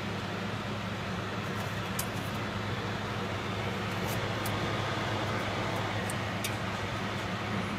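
Steady hum and rush of an environmental chamber's air-circulation fans. A few faint light clicks come through as the fittings and tubing inside are handled.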